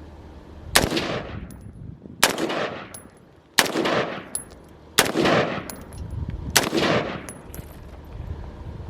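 Palmetto State Armory AR-15 M4 carbine in 5.56 NATO firing five semi-automatic shots about a second and a half apart, each crack trailing off in an echo. These are the first rounds through the newly built rifle, and it cycles without a hitch.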